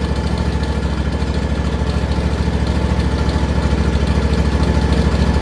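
John Deere X300 lawn tractor engine running steadily at idle with an even low pulse, fresh oil in the crankcase and a new filter on, left running to build oil pressure. It is running good.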